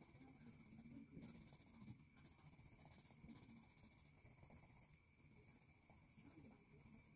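Faint scratching of a coloured pencil shading on paper, in spells of back-and-forth strokes broken by short pauses.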